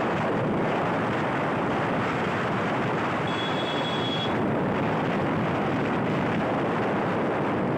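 Steady rush of wind on the microphone and road and traffic noise from a vehicle moving through city traffic. A brief faint high-pitched beep sounds about three seconds in.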